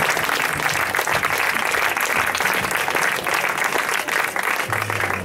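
Audience applauding steadily, a dense patter of many hands clapping, with a faint low steady hum underneath.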